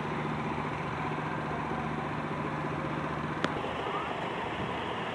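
Steady road traffic and vehicle engine noise with a low engine hum, and a single sharp click about three and a half seconds in.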